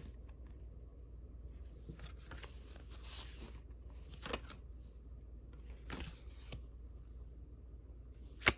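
Old paper ephemera being handled and shuffled: soft paper rustles and slides every second or so, with a sharper click near the end.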